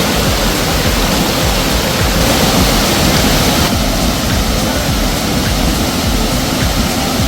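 Water rushing steadily in a mountain stream, a dense even hiss, turning brighter for a second or two between about two and four seconds in.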